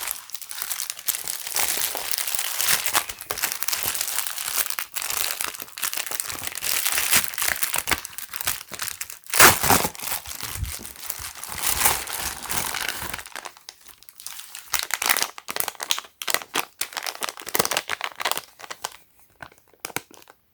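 Packaging crinkling and tearing as a small package is unwrapped by hand. The crackling runs densely for about thirteen seconds, with a louder burst about halfway, then thins out to scattered handling noises that die away.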